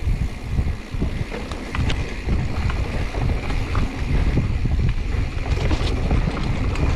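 Wind noise on the microphone of a helmet camera on a moving mountain bike, over tyres rolling on a wet dirt singletrack, with frequent small knocks and rattles from the 2021 Giant Trance X 29 full-suspension bike over the bumps.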